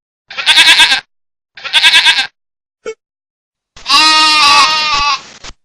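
Goat and sheep bleating: two short quavering bleats, then one longer bleat about four seconds in.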